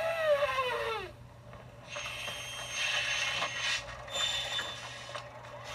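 Cartoon soundtrack played from a TV: a pitched tone slides downward over the first second. Then comes a few seconds of mechanical ratcheting and whirring, with thin high whines, as of a giant mechanical octopus sculpture moving.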